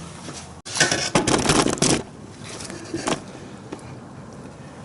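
Paper towel rustling and crinkling for about a second as it is pushed down into an opening, followed by quieter handling noise and a short click.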